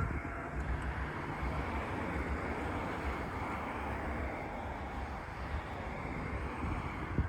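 Steady rumble of a train running by at a level crossing, with wind buffeting the microphone.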